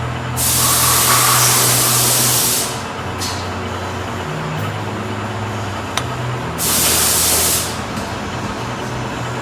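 A machine motor hums steadily, its low drone shifting in pitch about four seconds in, while loud hissing bursts of spray or air come twice, the first about two seconds long and the second about a second, with a sharp click between them.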